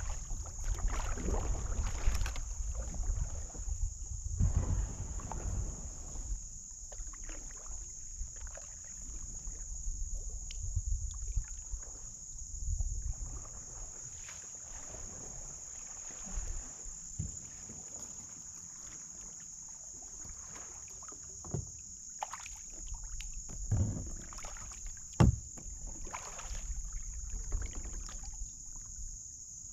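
Kayak paddling: irregular paddle strokes splashing and dripping close by, with wind rumble on the microphone and a steady high-pitched drone throughout. A few sharp knocks come in the second half, the loudest about 25 seconds in.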